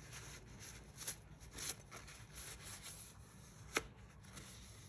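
Cloth rag wiping down a steel knife blade: faint rustling and rubbing with a few light clicks, the sharpest a little before the end.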